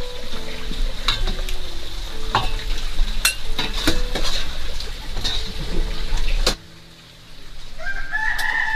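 A rooster crowing once, near the end. Before it comes background music with sharp clicks and taps, which cuts off abruptly about six and a half seconds in.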